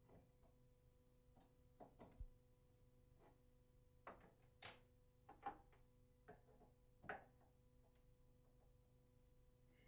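Faint, scattered clicks and knocks of metal tap parts being handled as a tap is reassembled after a washer change, over a low steady hum.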